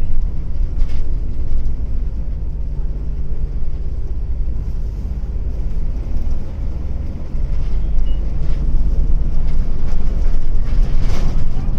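Hino Blue Ribbon long-body bus engine running under way, heard from inside the cabin as a steady low rumble that grows louder about two-thirds of the way in. Its engine note is slightly unlike that of an ordinary Blue Ribbon, which marks this bus out as an odd-sounding one.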